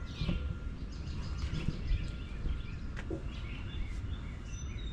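Outdoor background: small birds chirping repeatedly over a steady low rumble of ambient noise, with a single sharp click about three seconds in.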